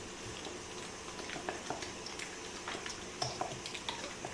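Wooden spoon stirring a thick yogurt and spice marinade in a stainless steel bowl: faint, irregular soft squelches and light clicks of the spoon.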